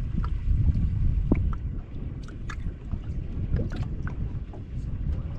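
Uneven low rumble of wind buffeting the microphone aboard a fishing boat, with a few faint clicks and knocks.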